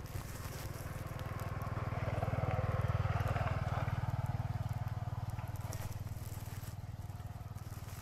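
Engine of a passing motor vehicle, a steady pulsing hum that grows louder to a peak about three seconds in and then slowly fades.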